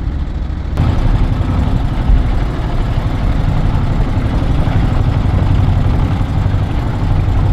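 An engine running steadily at an even low pitch; the sound steps up abruptly in loudness under a second in.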